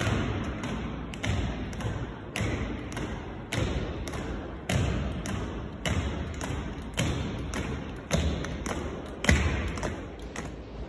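Slow ceremonial marching of an honour guard: boots striking a stone floor in an even rhythm, a heavy stamp a little more often than once a second with lighter steps between, each echoing in the church.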